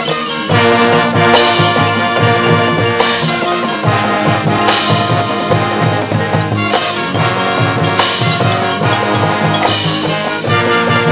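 A high school marching band playing loud brass, trumpets and trombones over drumline percussion, with loud percussion hits every second or two. The full band comes in louder about half a second in.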